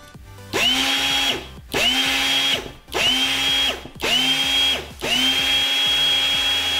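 Pit-bike starter motor, a brushed electric motor used as a robot weapon motor, switched through relays: it spins up in four short runs of about a second, each rising quickly to a steady whine and cutting off sharply, then starts again about five seconds in and runs on steadily.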